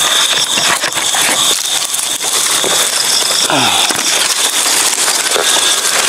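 Dry palm fronds and undergrowth rustling and crackling as someone pushes through on foot, over a steady high drone of night insects.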